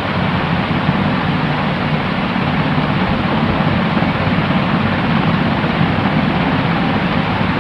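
Steady white noise from a sleep-sound track: an even, unbroken rushing hiss that never changes, somewhat dull, with no high hiss on top.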